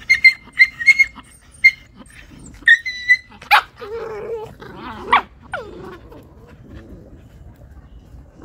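Puppies squabbling: a quick run of short, high-pitched yips over the first three seconds, then louder yelps and wavering growls around the middle, easing off toward the end.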